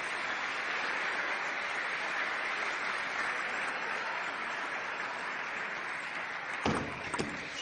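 Spectators applauding steadily. Near the end come a few sharp clicks: a table tennis ball struck by a paddle and bouncing on the table as a rally begins.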